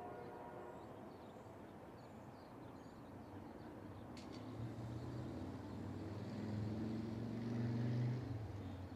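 Distant diesel locomotive approaching: a low engine drone grows steadily louder through the middle and is loudest near the end, after the last of a train horn dies away at the start. Faint bird chirps sound above it.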